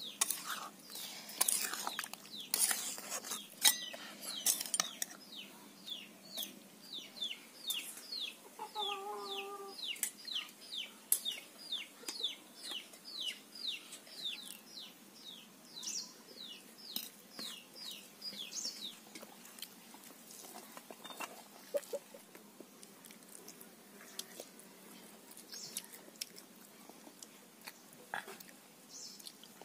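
Steel serving spoon clinking against a wok and steel bowls, then a long run of quick, high, falling peeps from a chick, two or three a second, with one short lower call about nine seconds in. Small clinks of metal plates continue near the end.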